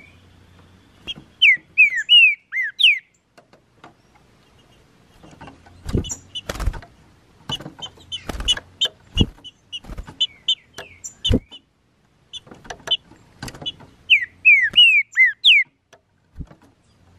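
Green-winged saltator (trinca-ferro) singing: phrases of loud, descending whistled notes, with shorter chirping notes between them and a few sharp knocks in the middle.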